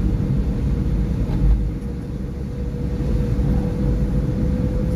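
A Fiat car driving on a wet road, heard from inside the cabin: a steady low rumble of engine and tyre noise with a faint steady whine.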